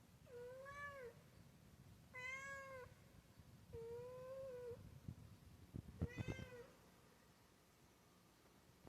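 Domestic cat meowing four times, each meow an arched call under a second long, the third longer and flatter. A few low thumps come just before and during the fourth meow.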